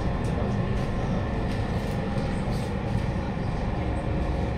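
Inside a Siemens C651 metro car, the train's running gear and traction equipment give a steady rumble as it draws to a stop at a station platform.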